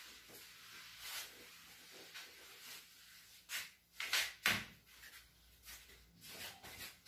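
A felt eraser scrubbing dry across a whiteboard. Then several sharp knocks come about three and a half to four and a half seconds in, the loudest sounds here, with a few lighter knocks near the end.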